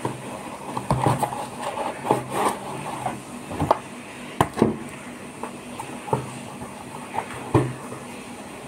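Cardboard shipping box being opened and handled by hand: rustling and scraping of cardboard for the first few seconds, then a string of irregular knocks and thuds as a boxed product is pulled out and handled on a table.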